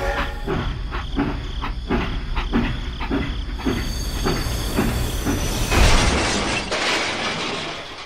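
Toy steam locomotive running on plastic track with a rhythmic clatter, two to three clicks a second, then a louder burst of noise about six seconds in.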